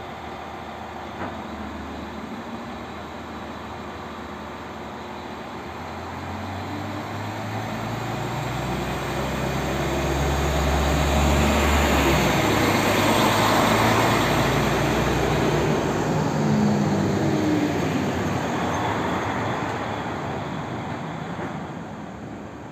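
SA139 diesel multiple unit pulling out of the station: its engine note builds as it accelerates, loudest as it passes close by, then fading as it draws away.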